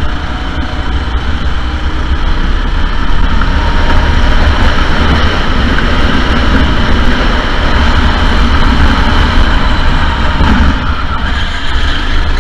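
Sodi SR4 go-kart engines, four-stroke single-cylinders, running on track: a loud, steady mechanical drone over a heavy low rumble, easing off briefly near the end.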